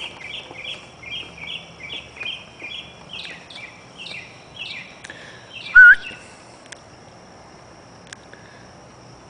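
A bird chirping outdoors in a quick repeated series, about three chirps a second, then a single loud rising call about six seconds in. A faint steady high tone runs underneath throughout.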